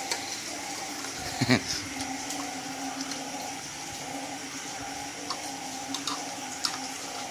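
A steady background hum with a sharp knock about a second and a half in and a few light clicks later on.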